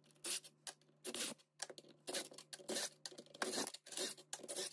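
Loosened bolts being backed out of a Briggs & Stratton engine's aluminium crankcase cover with a cordless drill: a string of short, irregular metallic scraping and rattling noises, with bolts set down on a metal tray.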